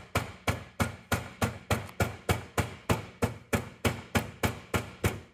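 Plastic-faced mallet tapping a new output seal into the bore of a Toyota transfer case housing, quick even blows at about four a second, driving the seal in. The blows stop shortly before the end.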